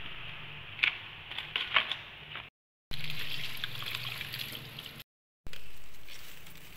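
Water sounds of food being washed by hand in a kitchen sink. First come a few splashes and knocks as whole fish are handled in a basin of water. Then tap water runs steadily over lettuce leaves being rinsed, broken twice by brief dead silences.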